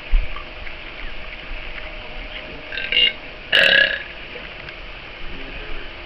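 A person belching loudly on cue, one burp about half a second long about three and a half seconds in, with a shorter, softer sound just before it. A brief thump comes just after the start.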